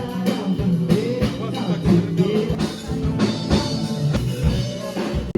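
Music with a drum kit and guitar playing a steady beat.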